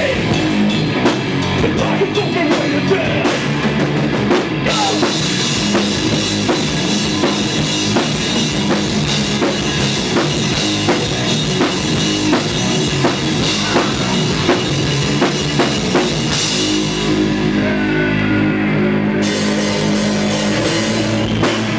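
Live rock band playing loud: a pounding drum kit with cymbals under guitars. About three-quarters of the way through, the drums drop out for a few seconds, leaving held guitar chords ringing.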